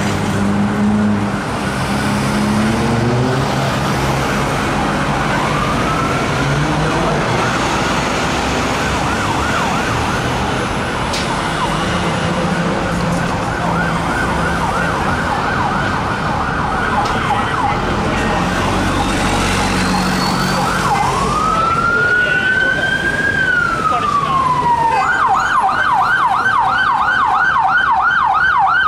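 Unmarked police car sirens passing through city traffic. The siren comes in about five seconds in with a fast, repeated up-and-down yelp, switches to one slow rising and falling wail about three-quarters of the way through, then goes back to the fast yelp near the end.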